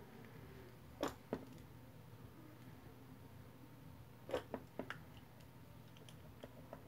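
Sharp clicks and knocks of small metal clamps being fitted onto the edges of a phone to hold its new back glass in place: two about a second in, then a quick cluster of four a little past the middle, with a few fainter ticks after.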